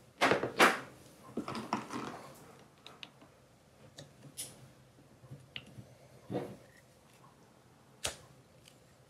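Clicks and knocks of metal parts handled while a chamber of an 1860 Colt percussion revolver is loaded with a brass powder flask, a round ball and the gun's loading lever. The loudest clicks come about a quarter to two-thirds of a second in, with a duller knock later and a sharp click near the end.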